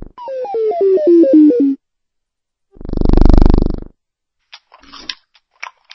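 Short cartoon intro jingle: about seven quick synth notes stepping down in pitch, followed by a whoosh that swells and fades about three seconds in. Near the end come a few faint chewing clicks.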